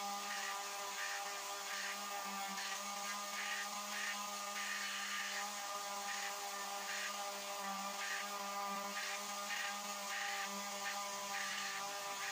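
Electric palm sander running steadily on a wooden panel: a constant motor hum, with a sanding hiss that swells and fades roughly once a second as it is pushed back and forth.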